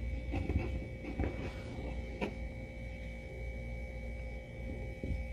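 Soft handling noise of fingers tying yarn knots, with a few faint ticks in the first couple of seconds, over a steady background hum with a faint whine.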